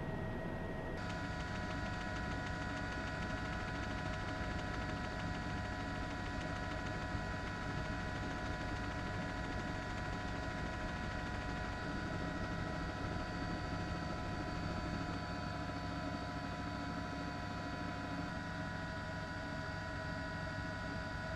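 Steady helicopter noise heard from aboard the aircraft: a constant rushing hum with several steady high whining tones from the turbine. The sound changes once about a second in and then holds unchanged.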